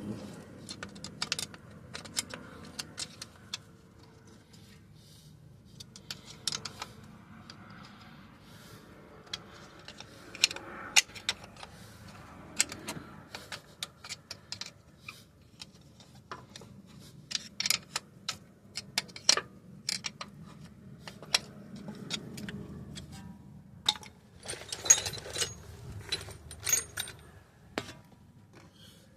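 Hand tools clinking and clicking against metal while working loose the filter cap on a CVT transmission: irregular sharp metallic clicks, busier in bursts about two-thirds of the way in and again near the end.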